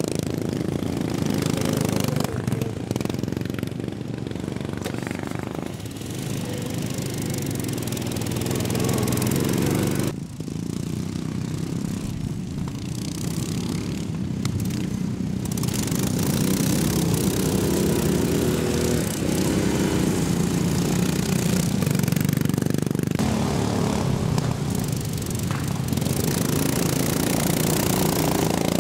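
Engines of racing ride-on lawn mowers running hard as several mowers race past on a grass track.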